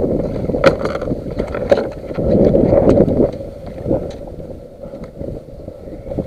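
Wind buffeting the camera microphone on a kayak, a rumbling rush that swells about two seconds in, with a few sharp knocks early on.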